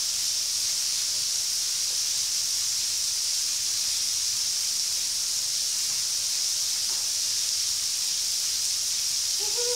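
Thin waterfall pouring over a rock bluff and splashing onto the rocks below: a steady, even hiss of falling water.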